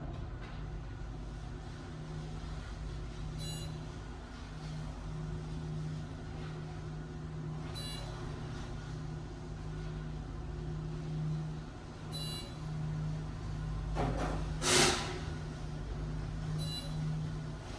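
Hydraulic elevator car rising, with a steady low hum from the hydraulic pump and a short high electronic beep repeating about every four and a half seconds. A sharp knock sounds once, about fifteen seconds in.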